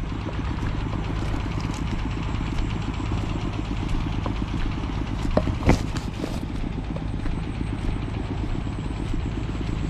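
Small motorcycle engine running steadily at low speed along a bumpy dirt track, with a couple of sharp knocks or rattles about five and a half seconds in.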